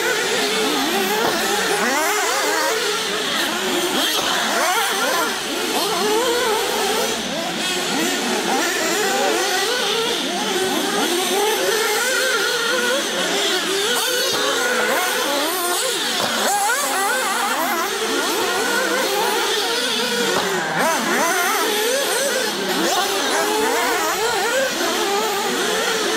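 Several 1/8-scale nitro RC rally cars racing, their small two-stroke glow engines revving up and down without pause, many engine notes rising and falling over one another.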